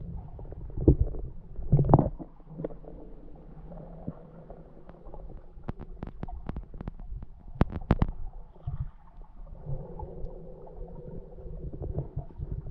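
Muffled underwater sound picked up by a submerged camera: a low rumbling and gurgling of moving water, with louder thumps about one and two seconds in and a quick run of sharp clicks a little past halfway.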